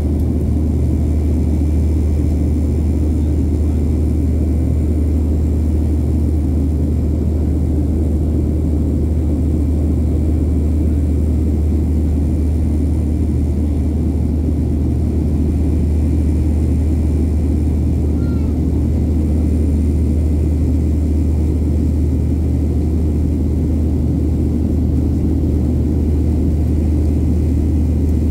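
Cabin noise inside a Boeing 737-700 in flight: its CFM56-7B turbofans and the airflow make a steady, even, deep drone, with a faint thin high whine over it.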